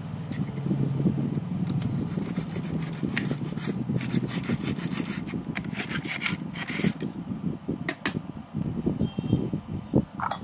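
A steel kitchen knife drawn again and again through a handheld pull-through knife sharpener, a fast series of short scraping rasps. Near the end come a few single strokes.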